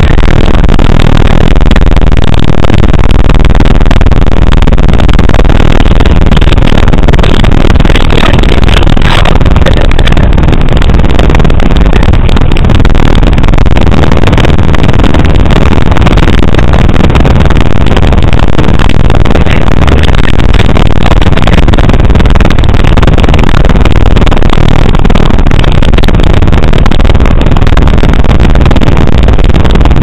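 Inside a Ford Thunderbird cruising on a motorway at about 148 km/h: loud, steady road, wind and engine noise picked up by the dashcam's microphone, with no change in pace.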